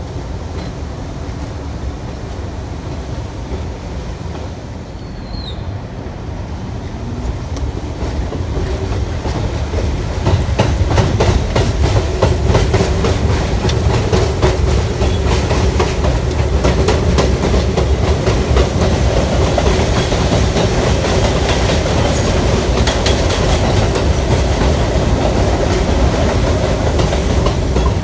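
New York City subway train running on elevated track: a steady rumble with the clickety-clack of wheels over rail joints. It grows louder about ten seconds in, where a steady whine joins it.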